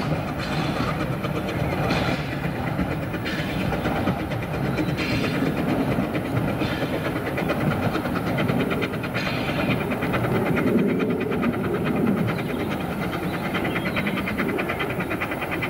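Narrow-gauge steam train running away along the line, a steady rumble and clatter.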